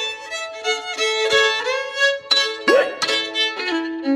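Solo fiddle playing an old-time tune: a run of bowed notes, at times two sounding together, with a sliding note about two and a half seconds in.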